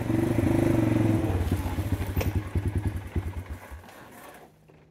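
ATV engine running, then winding down: its firing slows into separate chugs that spread further apart and die out a little over three seconds in, as when the engine is switched off. A single sharp click sounds partway through.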